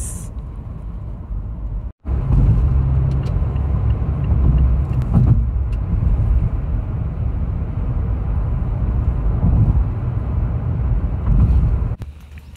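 Steady low rumble of road and engine noise inside a moving car's cabin. It drops away abruptly near the end.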